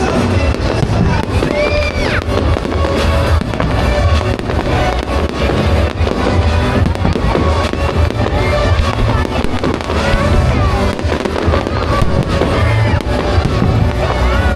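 Fireworks display in full swing: a continuous dense run of bangs and crackles over a heavy low rumble, with a few gliding whistles, and music playing underneath.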